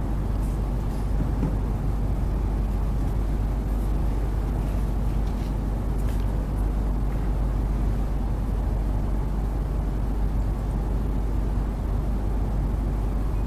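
Steady low rumble of room noise in a courtroom, even throughout with no speech, and a few faint ticks midway.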